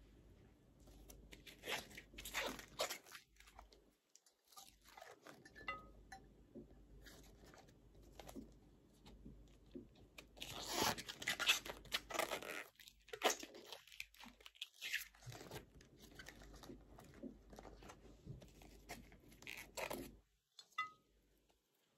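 Tough outer bracts of a banana blossom being peeled and snapped off by hand: irregular crisp crunching and tearing, busiest about halfway through.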